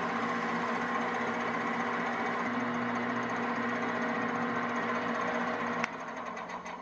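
A small metal lathe runs with a steady motor hum while it spins an engine valve being polished. Near the end it clicks off and the hum drops away.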